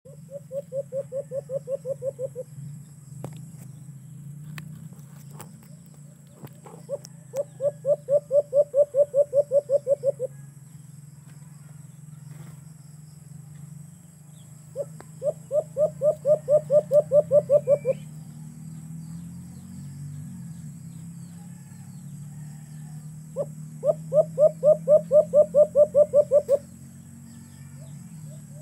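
Caged dove (alimokon) cooing in four bouts, each a rapid run of low, evenly spaced coos lasting two to three seconds and growing louder toward its end. A low steady hum runs underneath.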